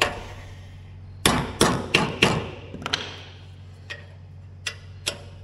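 Hand hammer striking a tool fitted on a seized oil drain plug: four sharp, ringing blows about a third of a second apart, then two lighter taps and a few faint clicks. The plug has been overtightened and won't come out.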